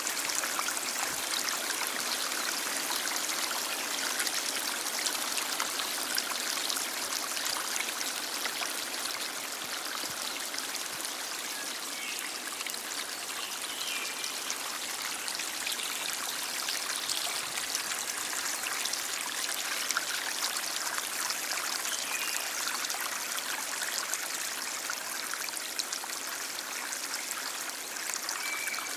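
Stream flowing steadily: a continuous hiss of running water, strongest in the upper range with little deep rumble.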